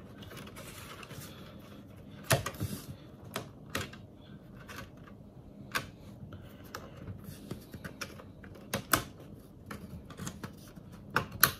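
Plastic bottom cover of an MSI GP63 Leopard laptop being pried loose along its edges: irregular sharp clicks and snaps as the cover's clips let go, a few of them louder than the rest.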